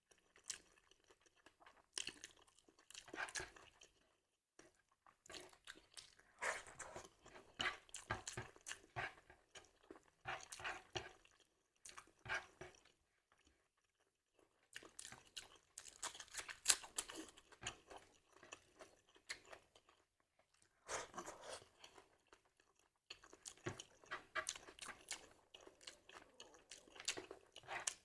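Close-miked chewing and crunching of crisp food, in bursts of a few seconds separated by short pauses.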